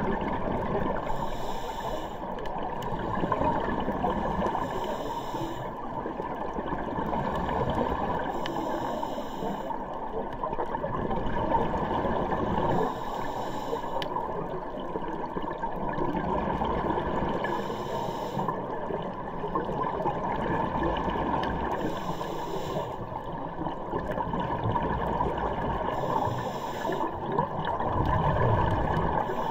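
A scuba diver breathing through a regulator underwater: a hiss with each breath about every four seconds, over a steady low rush of water noise.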